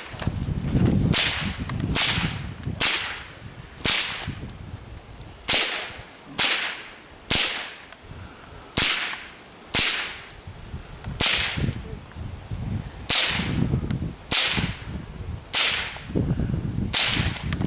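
.22LR rifle shots, about fifteen sharp cracks unevenly spaced roughly one a second, as the shooter fires at targets through a timed stage.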